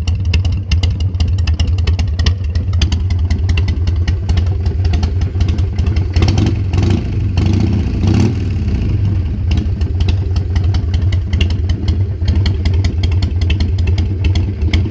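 Carbureted Harley-Davidson Sportster 1200 V-twin running through Cycle Shack slip-on mufflers with drilled-out baffles, a deep, low lumpy idle, with a brief rise and fall in revs around the middle. The engine is not fully warmed up, so it idles a little quick.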